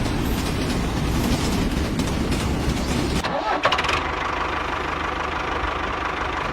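Motor running steadily, then a rising whine about three and a half seconds in that settles into a steady high whine over a low hum.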